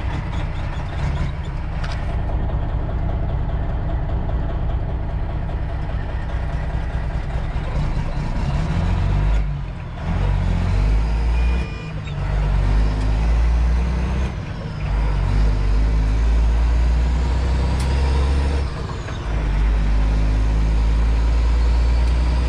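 Freightliner Classic's Detroit Diesel engine heard from inside the cab, pulling away and accelerating through the gears. The low drone grows louder about a third of the way in and breaks off briefly four times as the driver shifts up.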